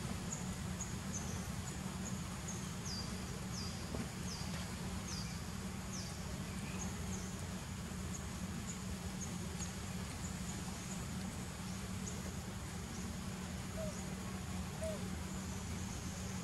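A small bird calling with repeated short, high chirps that fall in pitch, coming several a second during the first six seconds and fainter after that. Under it runs a steady low rumble of outdoor background noise.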